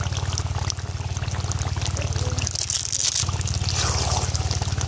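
Chicken-skin curry bubbling and sizzling in a kadai, the sizzle getting louder about halfway through, over a steady, low, throbbing hum.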